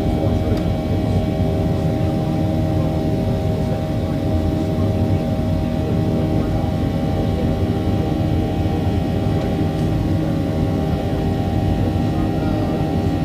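Jet engine noise of a Boeing 737-800's CFM56 engines heard inside the passenger cabin: a steady hum with several held tones over a low rumble.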